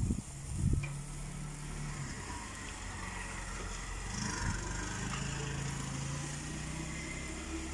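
A motor vehicle engine running with a steady low hum that swells near the end. Two knocks in the first second as metal skewers are turned on the wire grill rack.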